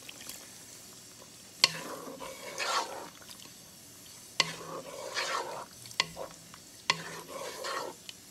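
Wooden spatula stirring a thick dried-anchovy and aubergine curry in a nonstick pan: several sweeping, scraping strokes through the gravy, each starting with a sharp knock of the spatula against the pan.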